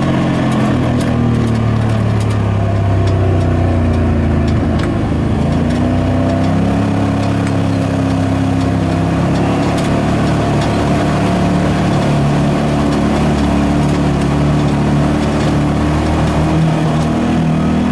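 Side-by-side UTV engine running under way, its pitch dipping and then rising with the throttle about five seconds in, heard from a camera on the hood along with road noise.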